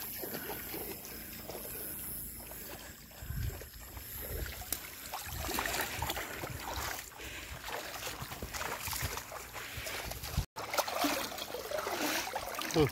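Uneven splashing and sloshing of shallow river water as a person wades and works hands and a hand net through it to catch a fish.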